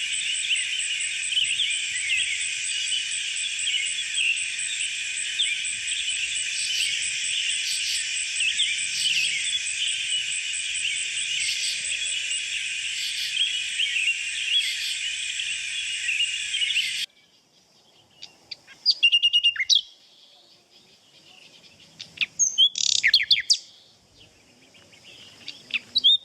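Dense chorus of many bird chirps and calls that stops abruptly about 17 seconds in, followed by a few separate short chirping calls.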